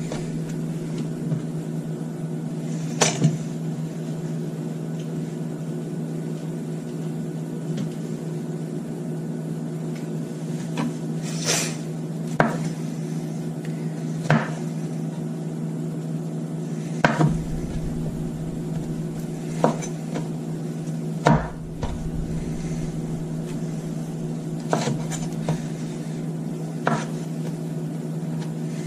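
Chef's knife chopping broccoli on a wooden cutting board: about a dozen sharp knocks of the blade on the board, spaced irregularly, over a steady low hum.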